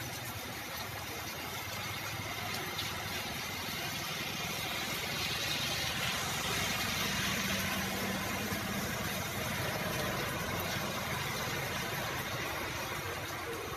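Steady heavy rain falling on a wet road, an even hiss. A motorbike passes through the rain, its engine hum and the hiss of its tyres on the wet road swelling in the middle.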